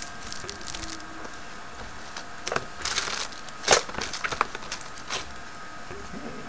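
Game-box packaging being handled by hand: rustling and crinkling of plastic wrap and a plastic tray with scattered clicks and knocks of cardboard, and one sharp knock a little past halfway.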